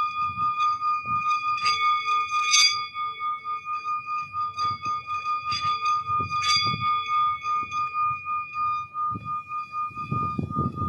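Singing bowl ringing with one steady high tone and its overtones, pulsing quickly in loudness, with a few short sharp strikes over it about a quarter and half of the way through.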